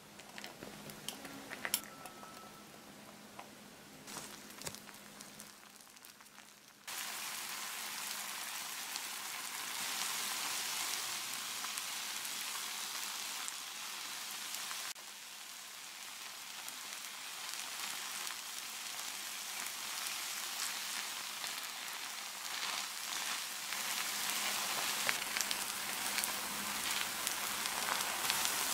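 Instant ramen noodles frying in a nonstick pan, a dense, steady sizzle that starts suddenly about seven seconds in. Before that there are only a few faint taps as shredded cheese drops into the pan. A few sharp clicks near the end come from the spatula pressing the noodles.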